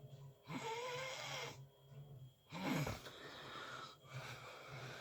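A sleeping person snoring: noisy breaths about a second long, one with a whistling wheeze that slides in pitch, and a louder low snort about halfway through.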